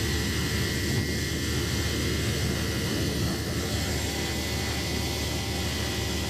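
Freight train of Taki 1900 cement tank wagons rolling past as it departs behind a DF200 diesel locomotive, a steady rumble of wheels on rail. A thin steady high tone runs through it.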